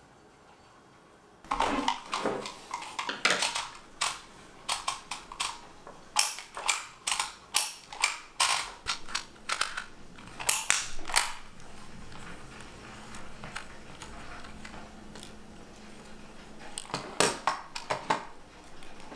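DYMO handheld embossing label maker being worked: its letter wheel is clicked round and its handle squeezed to press letters into plastic tape, giving a run of sharp, irregular clicks and crunches for about ten seconds, then a few more near the end. It opens with a second or so of near silence.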